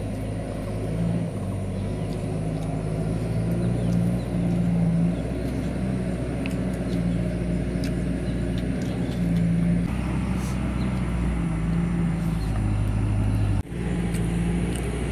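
A steady low mechanical hum, with a few faint clicks over it; the sound dips briefly near the end.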